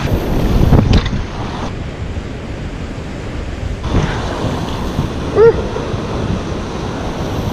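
Surf breaking and washing over a rocky reef, with wind buffeting the microphone. A loud sudden sound comes about a second in, and a short pitched sound about five seconds in.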